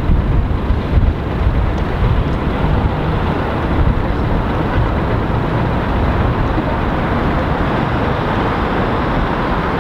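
Steady street traffic noise: a continuous rumbling wash of passing vehicles, with no single event standing out.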